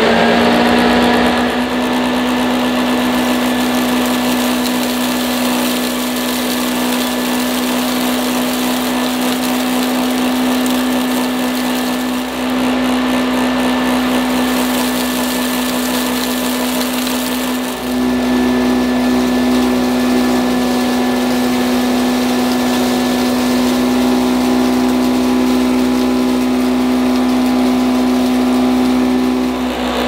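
1980 Hoover High Power Compact Exclusive (U2132) upright vacuum cleaner running steadily on its hose tools, just switched on: its pitch rises as the motor comes up to speed in the first second or two. The level dips briefly twice, near the middle and about two-thirds through.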